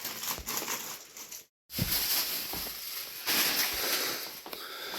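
Rustling and light knocks of groceries being handled and put away, with a brief dead gap at an edit cut about a second and a half in.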